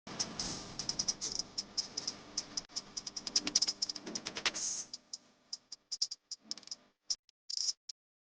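Rapid, irregular clicks and taps, several a second, like typing, over a faint rustle for about the first five seconds; the clicks then thin out to scattered single taps.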